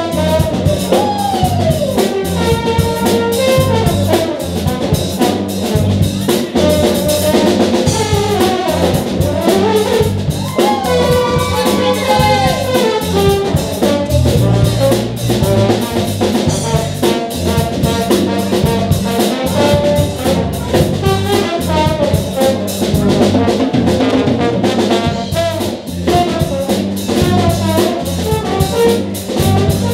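Live jazz-funk band playing an instrumental passage: trombone and alto saxophone lines, with sliding pitches, over electric guitar, bass guitar and a drum kit.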